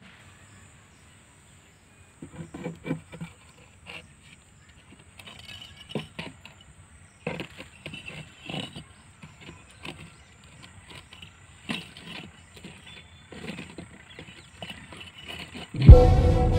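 Scattered faint knocks, scrapes and clicks of a plastic bottle and bricks being handled and set on dry ground. Music starts suddenly and loud just before the end.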